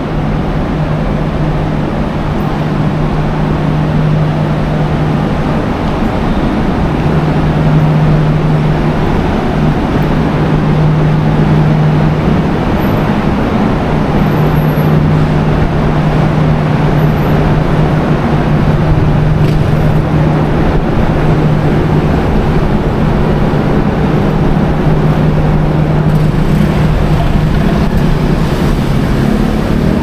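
Steady road traffic noise with a constant low engine hum running underneath.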